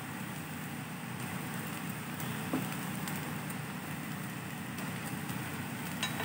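Steady sizzle and hiss of a thin rice-batter pancake cooking on a hot griddle, with one faint tap about two and a half seconds in.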